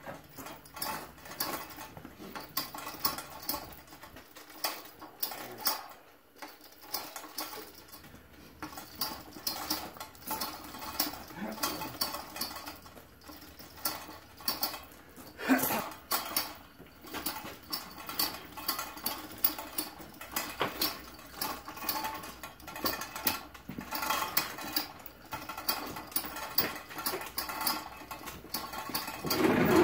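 Manual chain hoist being worked by its hand chain: a continuous run of quick metallic clicks and chain rattle as a heavy Hendey lathe part hangs from it.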